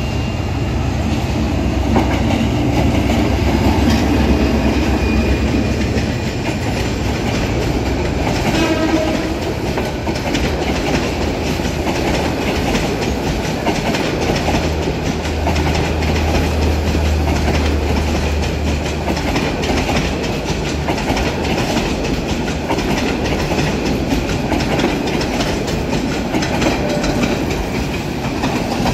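Bangladesh Railway diesel locomotive and its train of passenger coaches passing close by: a deep engine rumble at first, then a steady rattle and clickety-clack of coach wheels over the rail joints as the coaches roll past.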